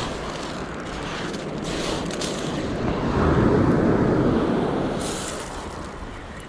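Waves breaking and washing up a shingle beach, with wind buffeting the microphone. One wave surges loudest about three seconds in, then fades.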